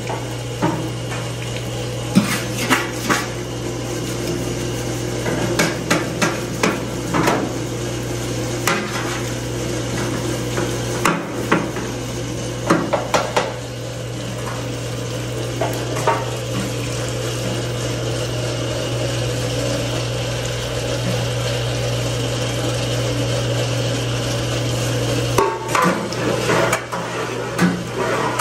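Cooking-oil filtration machine's pump running with a steady low hum as it circulates fryer oil through its filter. Scattered sharp metal clanks and taps sound over it.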